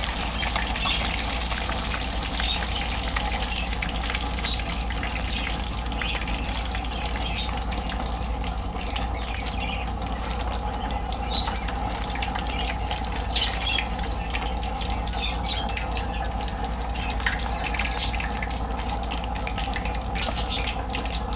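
Tilapia frying in hot oil in a pan: steady sizzling with scattered small pops and crackles.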